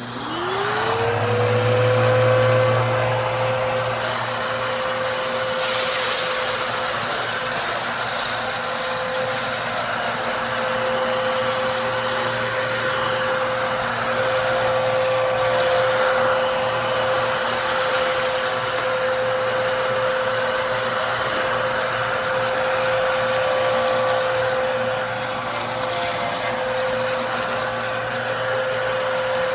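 Hoover Commercial HushTone upright vacuum cleaner switched on: the motor's whine rises and settles to a steady pitch within about a second, then runs steadily over the rush of air.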